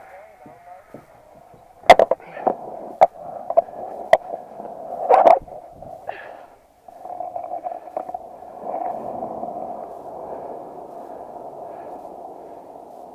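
Skateboard on concrete: a handful of sharp clacks and knocks from the board and trucks in the first six seconds, the loudest about two seconds in and about five seconds in. Then the wheels roll steadily over the concrete.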